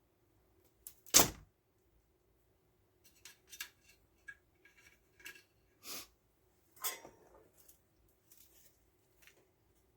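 Tools, wire and solder being handled on a workbench while a wire is tinned: one sharp knock about a second in, then a scatter of light clicks and taps.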